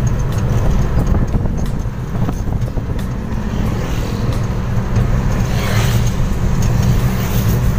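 Steady low rumble of a vehicle's engine and road noise heard from inside its cabin while driving, with a brief rise in hiss about six seconds in.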